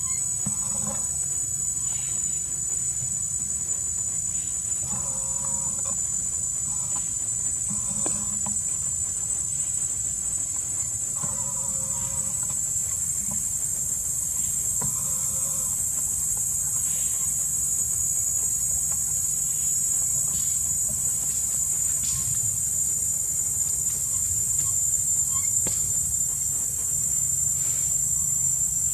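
Forest insects droning as one steady high-pitched buzz, growing a little louder near the end, with a few short faint calls over it.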